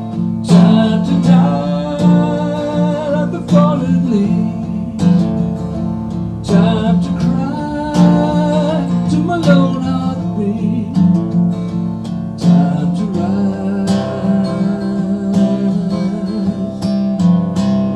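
Acoustic guitar strummed steadily, with a man's voice singing wordlessly over it in a few stretches.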